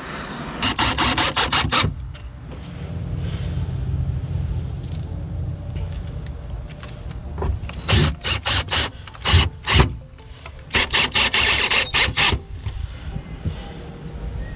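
Cordless drill driving screws through a plastic seat-base plate into the plywood boat floor, in three short runs of rapid clicking: about a second in, around eight seconds and around eleven seconds, with a lower drone between them.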